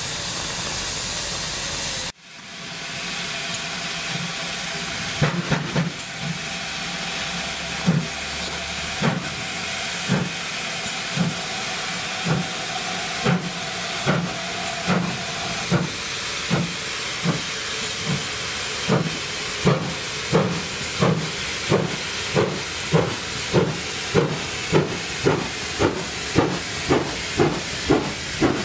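A GWR tender steam locomotive starting away with a train of coaches. A loud steady hiss of steam cuts off suddenly about two seconds in. Then the exhaust beats begin, slow at first and quickening to about two a second, over a continuous hiss of steam escaping around the cylinders.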